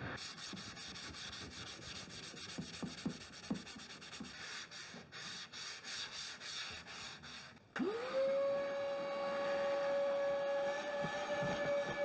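Hand scuff-sanding of a wooden vanity top with a sanding sponge: quick back-and-forth rasping strokes. About eight seconds in, a vacuum switches on, its motor spinning up in a moment to a steady whine that holds.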